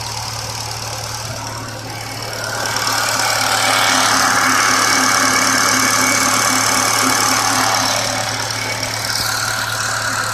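Car engine running with a steady low hum; about two and a half seconds in a louder, higher-pitched noise joins and holds, easing off about eight seconds in. This is the weird noise the owner is recording.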